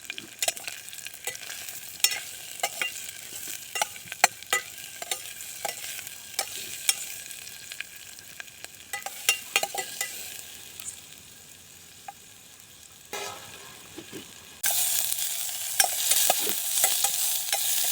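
Onions frying in hot, spattering oil in a pan, with a spatula clicking and scraping against the pan as they are stirred. The sizzle drops lower for a while, then turns suddenly much louder near the end.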